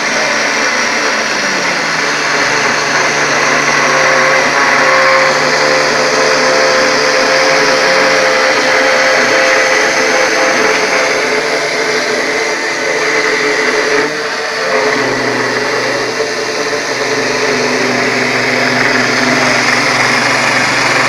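Homemade CNC machine cutting: its spindle runs steadily under a steady whine of tones that step to a new pitch every few seconds as the machine's moves change.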